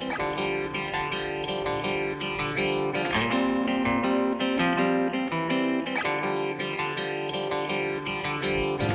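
Background music: a plucked guitar playing a steady melody over held chords.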